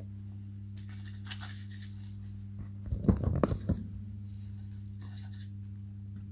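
A micro servo in the model glider's tail drives the rudder back and forth, giving a short burst of buzzing about three seconds in. A steady low electrical hum runs underneath.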